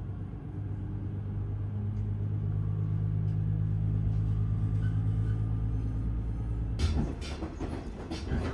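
Diesel railcar engine running with a steady low hum that grows a little louder over the first few seconds. About seven seconds in it gives way to a busier rattling and clattering.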